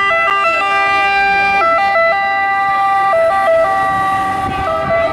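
Italian ambulance two-tone siren wailing, stepping back and forth between a high and a low pitch at an uneven pace.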